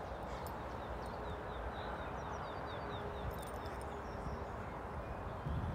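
Outdoor ambience: a steady background hiss with a small songbird singing a quick run of short, high, falling chirps through the first three seconds, and a brief low rumble near the end.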